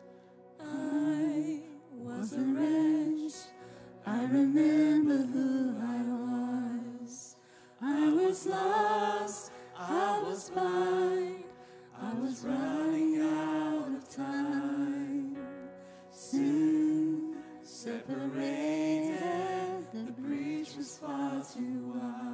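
Church worship team singing a worship song, voices over a band accompaniment with sustained chords. The melody comes in sung phrases of a second or two with short breaths between them.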